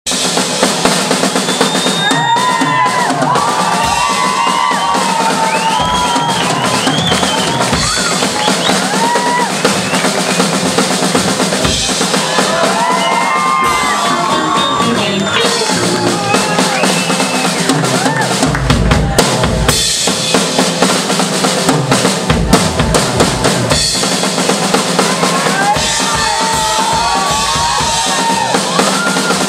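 Live band playing a funk tune, the drum kit busy and prominent with kick, snare and fills throughout. Electric bass and a lead instrument playing sliding, bending phrases run beneath it.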